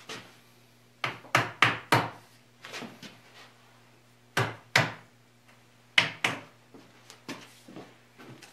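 Sharp knocks of blows on a wooden bed frame, tapping the headboard and rail joints home into the post: a quick run of four about a second in, a pair a few seconds later, another pair, then lighter taps near the end.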